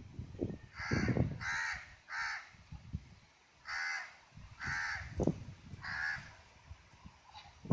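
A crow cawing six times, in two sets of three harsh caws, over low thumps and rustling close to the microphone.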